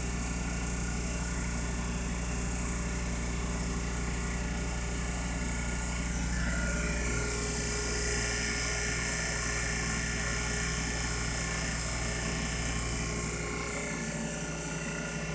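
Blueline Orion 100 oil-sealed vacuum pump running steadily with a low electric-motor hum, pumping down on a flask of liquid for a vapor pressure test. About halfway through, a higher hiss rises and holds above the hum.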